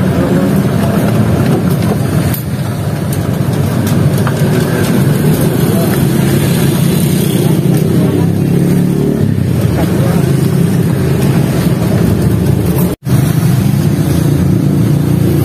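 Steady low roar of a gas-fired wok burner under a large wok of frying rice. It cuts out for an instant about 13 seconds in.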